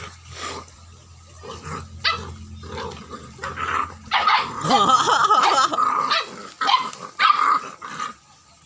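A dog barking and growling in repeated bursts, with a longer, louder stretch of agitated barking about halfway through.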